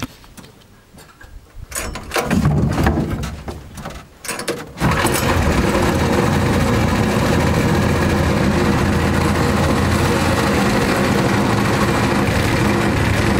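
Lifan single-cylinder four-stroke engine on a BAWAD mud motor starting up: a few seconds of uneven sputtering bursts, then it catches about five seconds in and runs steadily.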